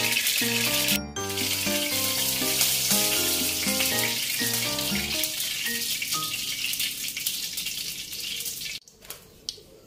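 Hot frying oil in a wok sizzling steadily over background music; both cut off abruptly near the end.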